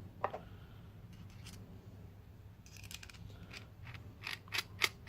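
Small hard TIG torch parts and gas cups being handled: scattered short clicks and clinks, with a brief scratchy cluster about halfway through and a few sharper clicks near the end.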